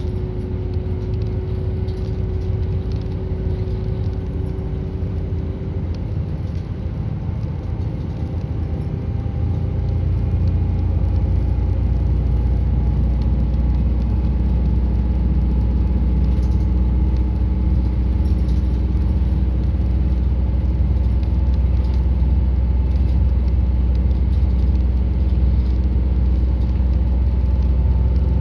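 Route bus engine and road noise heard from inside the passenger cabin. About ten seconds in, the engine grows louder, its note rising a little, and it holds there under steady load.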